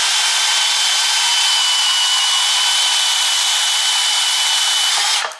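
Portable band saw cutting through a soft aluminum hub piece, running steadily with a thin high whine over the rasp of the blade, and stopping abruptly near the end.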